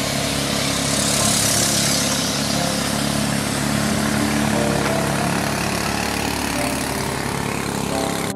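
A small engine running steadily, a low hum with a strong hiss over it, which cuts off suddenly at the end.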